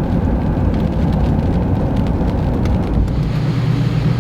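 Rain with a steady low rumble of vehicle noise, with scattered raindrop ticks. About three seconds in, the sound changes to a steadier low hum.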